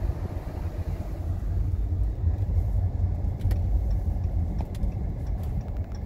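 Dodge car driving on a snow-covered road, heard from inside the cabin: a steady low rumble of engine and tyres, with a few faint ticks in the second half.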